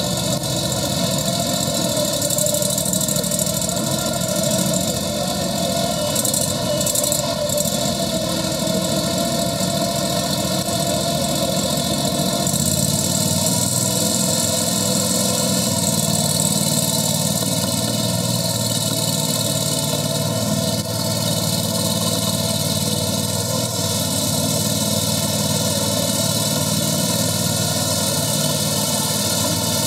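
Steady loud background noise of a large exhibition hall, a constant din with no distinct events.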